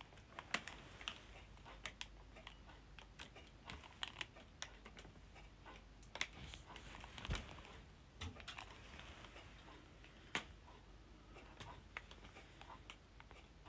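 A quiet room with faint, irregular clicks and soft taps, a few of them a little louder about halfway through.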